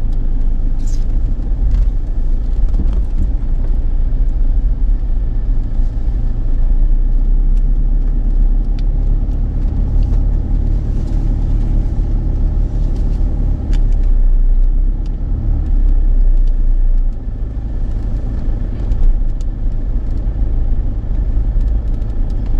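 Car being driven: a steady low engine and road rumble, easing off a little about seventeen seconds in.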